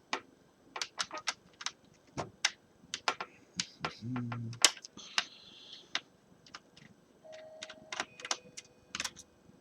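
Irregular sharp clicks of a small screwdriver working the screws out of a laptop's plastic screen bezel, with the screws and tool tapping against the plastic.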